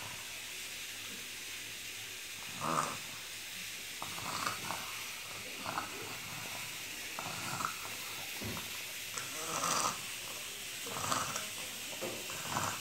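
A young girl with cerebral palsy making irregular rasping breaths and short throaty sounds, one every second or two, over a faint steady hiss. She is in an agitated spell that her family fears may be the start of a seizure.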